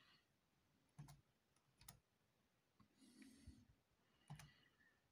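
Faint, separate key clicks on a Dell Latitude E5410 laptop keyboard as a product key is typed in, a few keystrokes spaced about a second apart with a soft rustle between them.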